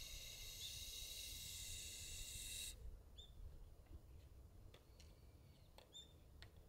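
Near-quiet open air: a steady high hiss for about the first three seconds, then a couple of short, high bird chirps and a few faint clicks.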